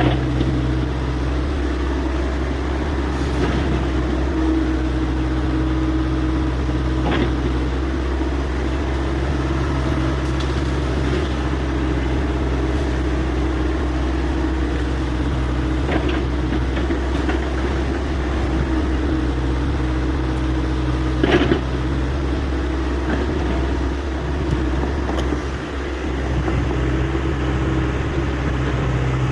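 Hyundai 85A excavator's diesel engine running steadily under work, with a few short sharp knocks over it, the loudest about two-thirds of the way through.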